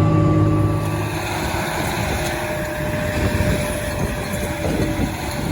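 Tractor engine running during planting with a steady hum. About a second in, the hum drops back and a rougher, uneven rumble takes over.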